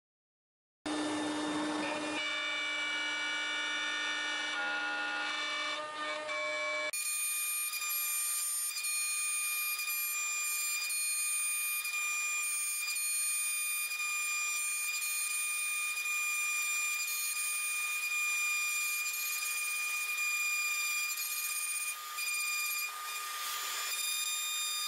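CNC router spindle running with a steady high-pitched whine. About seven seconds in the sound cuts abruptly to a different, higher whine that holds steady.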